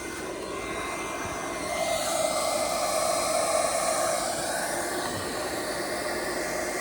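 Steady rushing whir of a handheld induction heater's cooling fan, with a louder rushing sound that swells about two seconds in and fades back.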